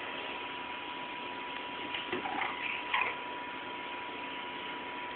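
Steady hiss from the recording device with a constant high-pitched whine, broken by a few short faint sounds about two to three seconds in.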